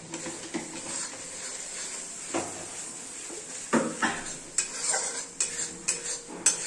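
Metal spatula stirring and scraping thick onion masala, with turmeric just added, around a steel kadhai, clinking against the pan again and again. A faint sizzle of the masala frying runs underneath.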